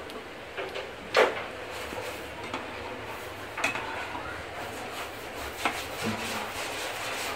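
Slotted ladle clinking against a kadai and a plate as fried pakodas are lifted from the oil and set down on tissue paper: a few sharp clatters, the loudest about a second in, over a faint steady hiss of frying oil.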